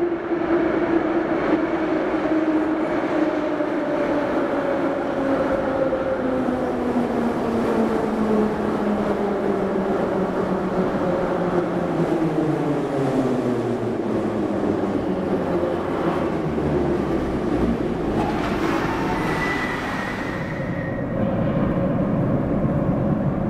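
Metro train pulling into the station and braking to a stop, its motor whine falling steadily in pitch for most of the run. Near the end comes a brief hiss and a short high tone.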